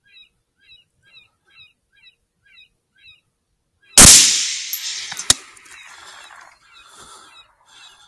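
A rifle shot about four seconds in, its report rolling away over the next couple of seconds, with two sharp knocks soon after it. Before the shot a short high chirping call repeats about twice a second; it stops at the shot and starts again near the end.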